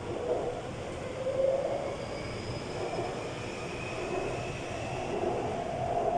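Taipei Metro train running between stations, a steady rumble of wheels on rail. From about two seconds in, a faint whine rises slowly in pitch: the traction motors.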